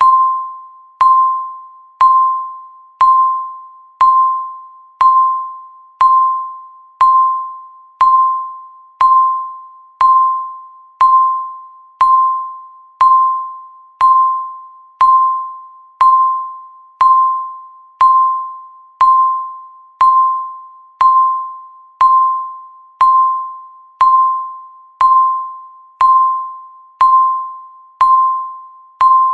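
Countdown timer beep: a single bell-like tone struck once a second, each starting sharply and fading away before the next, in an even, unbroken rhythm.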